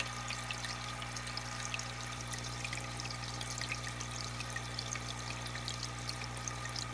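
Aquarium water trickling and bubbling continuously, with many small splashy drips over a steady low hum from the tank's pump or filter.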